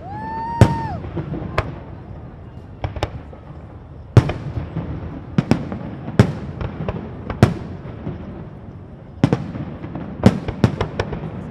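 Fireworks display: more than a dozen sharp aerial shell bursts at uneven intervals, some in quick clusters of two or three, over a low continuous rumble.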